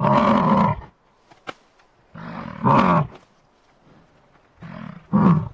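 Bison bellowing: three deep calls of about a second each, spaced about two seconds apart.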